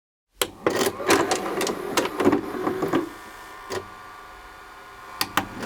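A small machine clicking and clattering irregularly, then running with a steady whine, with two sharp clicks near the end.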